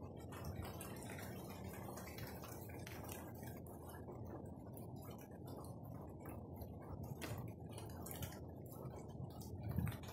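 Rainwater dripping in irregular ticks, a few drops a second, onto wet leaves and wood, over a steady low rush of rain.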